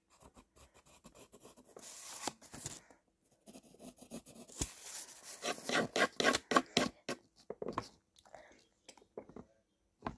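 Pencil shading on paper: quick back-and-forth scratchy strokes, fastest and loudest about halfway through.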